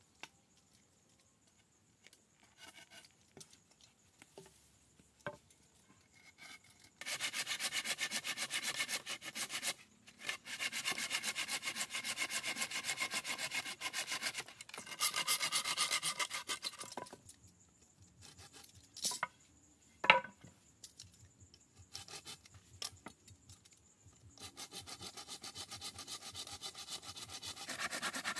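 A hand tool rasping against wood in long runs of quick, even strokes, the sound of sawing or scraping timber. The strokes start about a quarter of the way in, stop for a few seconds in the middle with one sharp knock, and start again near the end.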